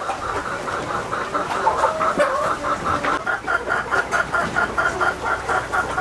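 A flock of desi chickens clucking, many short clucks overlapping in a rapid, steady chatter that grows denser about halfway through.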